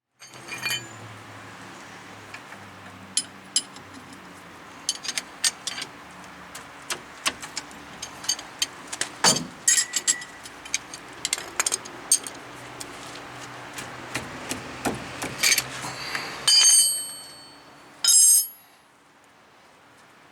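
Hand tools and metal parts clinking and tapping in irregular clicks over a low steady hum, with two louder metallic clatters near the end, during rear brake work on a pickup truck.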